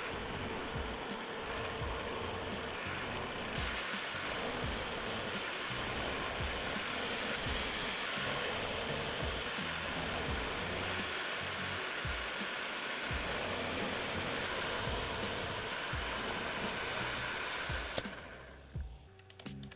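A CNC milling machine cutting metal with a small carbide end mill: a steady, dense cutting noise with a hiss. There are short louder moments about a second in and again around eight seconds, and the cutting stops abruptly a couple of seconds before the end.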